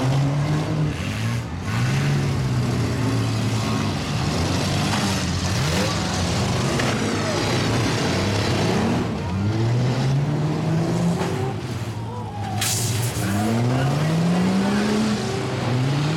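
Demolition derby cars, mini trucks, SUVs and minivans, driving and colliding in a dirt arena, their engines revving hard again and again with the pitch repeatedly rising and falling. There is a brief sharp noise about twelve seconds in.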